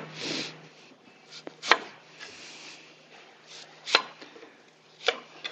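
A chef's knife cutting an apple around its core on a wooden butcher-block board, the blade knocking sharply on the wood four times, a second or two apart.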